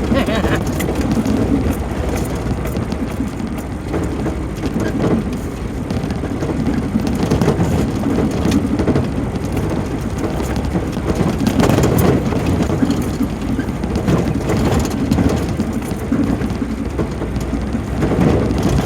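Off-road vehicle driving a rough dirt trail: a steady rumble of engine and tyres with many small knocks and rattles.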